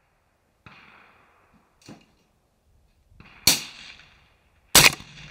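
Two sharp, loud shots from a suppressed semi-automatic 6.5 Creedmoor rifle fitted with a Dead Air Sandman-L suppressor, a little over a second apart in the second half, the second one the loudest, each trailing off quickly. A fainter noise comes under a second in.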